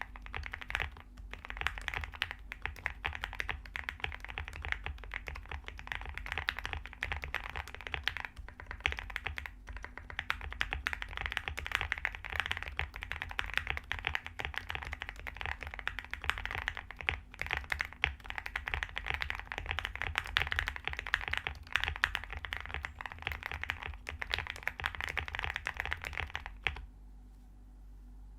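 Continuous fast typing on a custom mechanical keyboard with lubed, filmed Gateron Black Ink linear switches, a polycarbonate plate and MT3 keycaps: a dense run of key clacks, with a short pause near the end.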